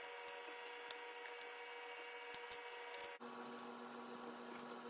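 Faint steady electrical hum with a few small clicks, the loudest about a second in, from header pins and a Teensy LC board being handled on a plastic solderless breadboard. The hum changes, with a lower tone coming in, about three seconds in.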